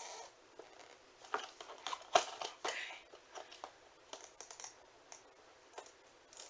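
Plastic toy packaging being worked open by hand: scattered crinkles, scrapes and clicks, the sharpest about two seconds in.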